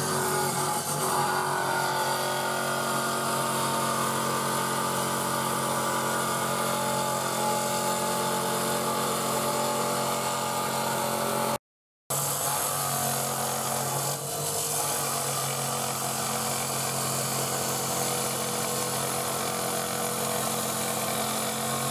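Electric wet stone-cutting saw running steadily: a constant motor hum under the hiss of the spinning blade. The sound drops out for a moment a little before halfway.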